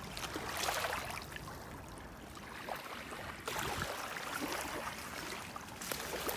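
Small waves lapping onto a shoreline of pebbles and shells, washing in and out in a few swells, with faint clicks of the stones.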